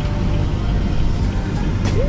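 Motorhome driving, heard from inside the cab: a steady low rumble of engine and road noise, with a single sharp click near the end.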